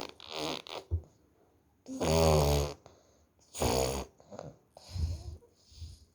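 A toddler making fart noises with the mouth: about four buzzy, raspberry-like bursts with short quiet gaps between them. The longest and loudest comes about two seconds in and lasts nearly a second.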